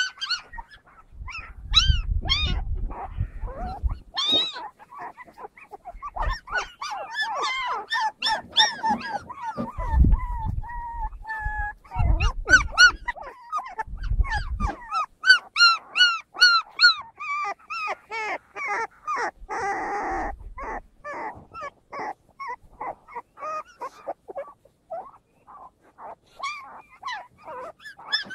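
Puppies yipping and whimpering over and over in short, high calls while they play, with a few low thumps now and then.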